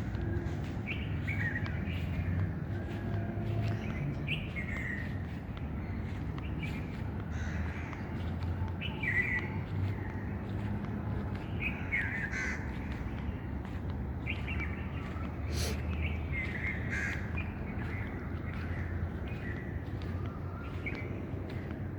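Birds calling: short calls repeating every second or two, over a steady low rumble.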